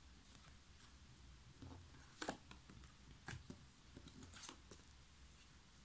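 Tarot cards being picked up and turned over on a tabletop: a few faint clicks and short scrapes of card on card, over a low room hum.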